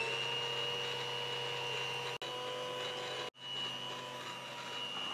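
Electric mixer with twin beaters running at slow speed, a steady motor whine, beating oil and powdered sugar in a steel bowl. The sound drops out briefly about two seconds in and again just after three seconds.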